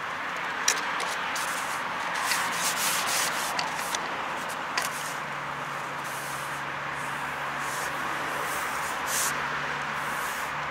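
Carbon fishing pole rubbing and sliding through the angler's hands: a series of short scrapes with a few light knocks, over a steady hiss.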